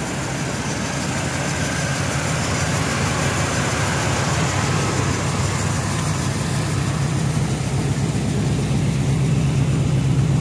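1979 Buick Regal's V8 idling steadily, a little louder near the end as the rear of the car and the tailpipe come close.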